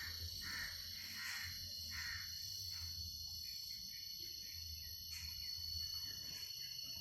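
Steady, high-pitched drone of insects, with a few faint short sounds in the first couple of seconds and again near the end.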